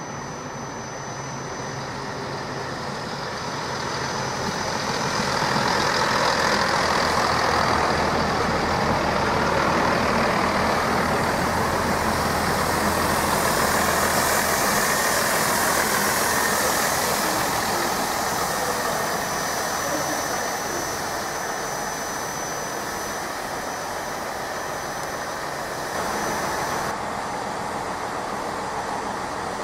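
A GWR Networker Turbo diesel multiple unit passing close by, its underfloor diesel engines running under the rumble of the wheels. The noise builds over the first few seconds, holds, then eases off after about eighteen seconds. Near the end a different steady engine hum takes over.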